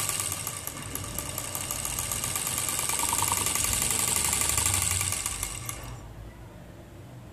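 Small homemade brushed DC motor spinning fast: a rapid mechanical buzz with the brushes ticking on the commutator. It stops about six seconds in.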